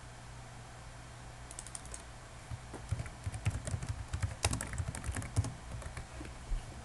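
Typing on a computer keyboard: a quick run of keystrokes starting about a second and a half in and lasting about four seconds, over a low steady hum.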